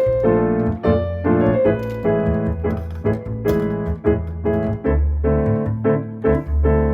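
Background music: a piano playing a gentle, steadily pulsing chordal tune.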